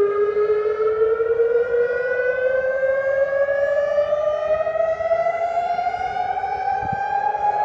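Outdoor warning siren wail played backwards: it starts suddenly and rises slowly and steadily in pitch throughout.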